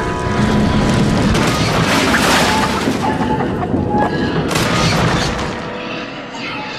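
A long, loud crash sound effect of a steam engine derailing and smashing into the ground, with music underneath. It fades away near the end.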